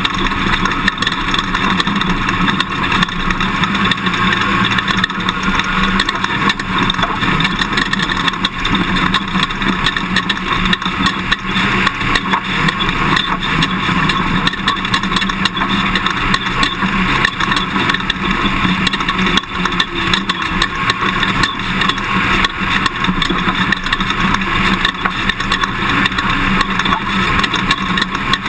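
Toyota Tundra pickup driving a dirt course: a steady, loud rush of engine and tyre noise, busy with many small knocks and rattles throughout.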